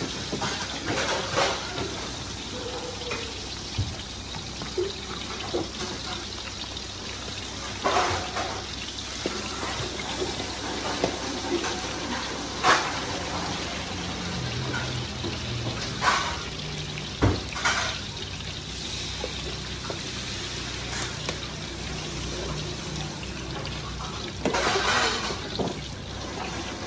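Oil sizzling steadily in several woks of bánh xèo (Vietnamese crispy crepes) frying in deep oil, with metal spatulas scraping and clanking against the woks every few seconds.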